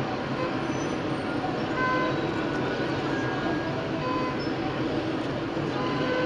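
Steady street traffic noise of cars and motorcycle engines, with a few short tones now and then.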